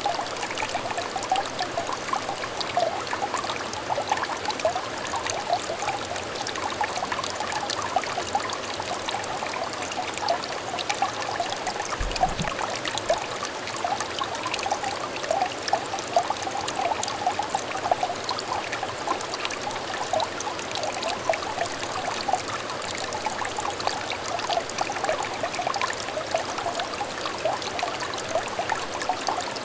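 Small stream of water trickling and babbling steadily: a continuous run of little bubbling, plinking gurgles.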